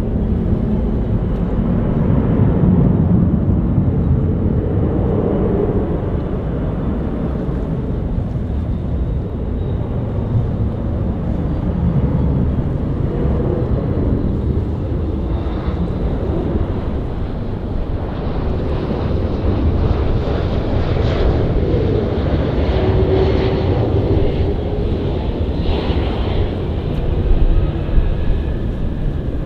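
Jet airliner engines, a loud steady rumble with a faint whine above it.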